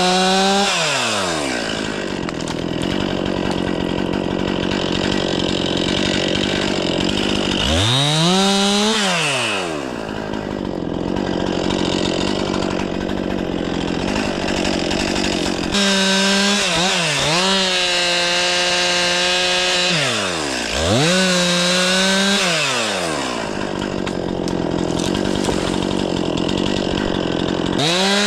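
Stihl MS 500i two-stroke chainsaw running at high revs and cutting through wood, held steady under load for long stretches. Several times the revs drop sharply and climb back as the throttle is eased and reapplied.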